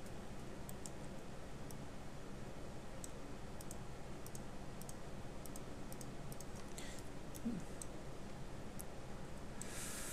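Faint, scattered clicks of a computer mouse and keyboard keys, about a dozen over the stretch, over a low steady hum. A short rush of breath comes near the end.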